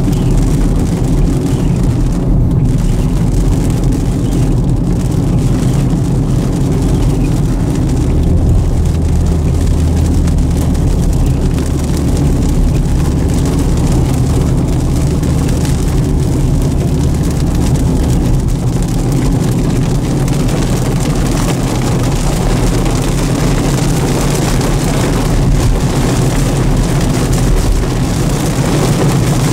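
Car driving on the road: steady road and engine noise, with a low drone that strengthens from about a quarter of the way in to just past the middle.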